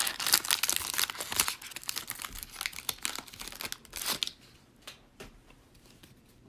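Plastic cello-pack wrapper of trading cards being torn open and crinkled, a dense crackling that stops about four seconds in.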